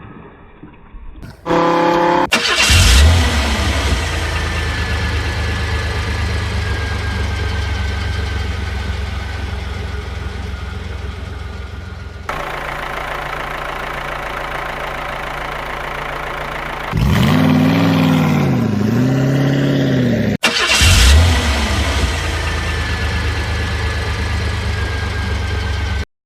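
A car engine starts, then runs steadily. Later it revs up and down two or three times, cuts out for a moment, and starts again to run on.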